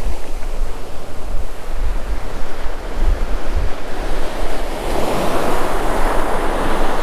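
Ocean surf breaking and washing up the beach, with wind buffeting the microphone. A wave washes in louder about five seconds in.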